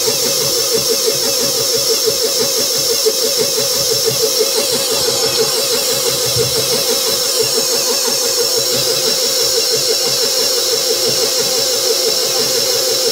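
KitchenAid bowl-lift stand mixer running steadily, its motor giving a whine that wavers rapidly and evenly, while a stainless metal Beater Blade with scraping edges turns flour into cookie dough in a stainless steel bowl.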